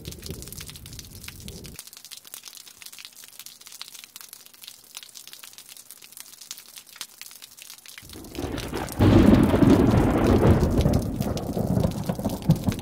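Rain falling with rolling thunder: a low rumble dies away at the start, leaving the patter of rain, then thunder builds and breaks loudly about nine seconds in and rolls on to the end.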